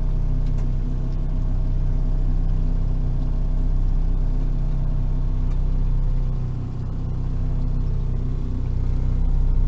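Boat motor running steadily at trolling speed, a constant low hum heard from on board.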